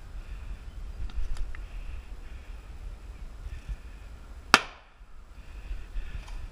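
An airsoft grenade going off: one sharp, loud bang about four and a half seconds in that dies away quickly. A few faint clicks come about a second in.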